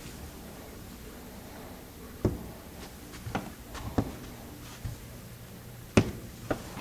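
A handful of sharp, irregular taps and knocks over low room noise, the loudest about six seconds in.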